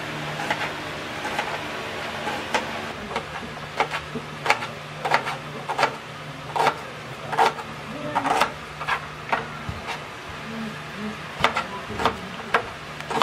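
Chef's knife slicing red onion on a plastic cutting board: irregular sharp knocks of the blade meeting the board, about one or two a second, over a low steady hum.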